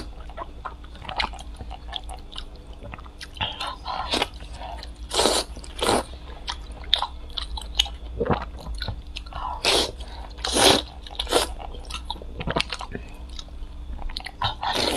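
Close-miked eating: a person biting into and chewing pieces of braised bone-in meat, with irregular loud bites and mouth sounds every second or so.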